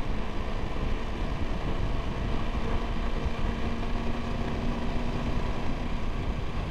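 Triumph Tiger 1200 motorcycle's three-cylinder engine running at a steady pace while riding, under a constant rush of wind and road noise.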